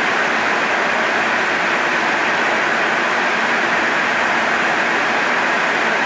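Steady rushing noise inside an airliner's flight deck in cruise flight.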